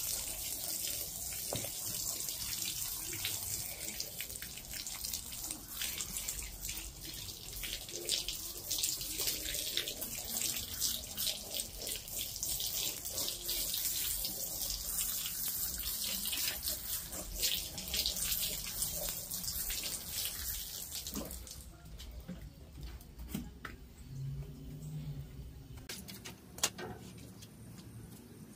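Pet urine treatment being sprayed onto a rug: a steady hissing spray of liquid with fine spattering, which stops about three-quarters of the way through, leaving a few quieter ticks and handling sounds.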